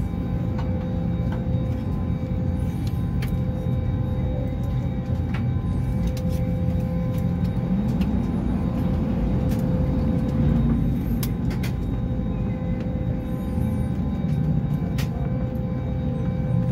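Cabin noise in an Airbus A321neo GTF airliner moving on the ground: a steady low rumble with a faint hum of steady tones and a few light clicks.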